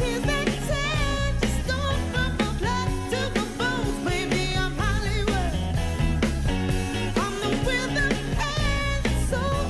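Live band music with a singer: a wavering vocal line over bass and a steady drum beat.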